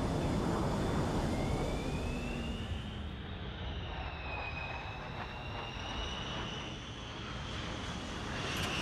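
Jet fighter's engines running, a steady rush with a high whine that rises about a second in and then wavers in pitch.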